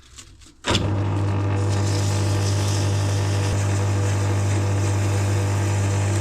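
A lathe starting up about a second in and running steadily: a constant motor hum with a hiss over it, while a brass fixing is turned.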